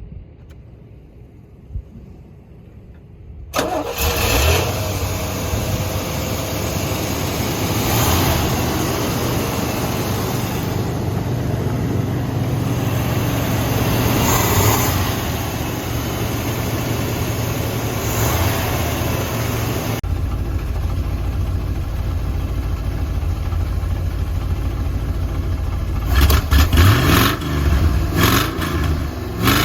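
1974 Chevrolet Corvette's 350 cubic inch L48 V8 with an aftermarket camshaft, starting a few seconds in and then idling steadily. It is revved several times in quick succession near the end.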